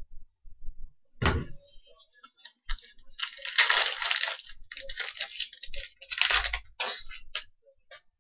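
A stack of hockey trading cards being slid and shuffled through the hands, in bursts of rustling card-on-card friction, after a single thump about a second in.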